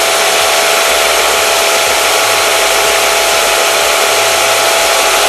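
SIP 01943 combined belt and disc sander, driven by its 1 hp motor, running at speed: a steady, loud whirring hiss with a thin constant whine.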